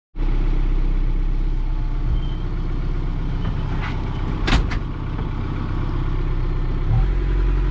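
Diesel engine of a JCB 3CX Compact backhoe loader running steadily, with a sharp knock about four and a half seconds in.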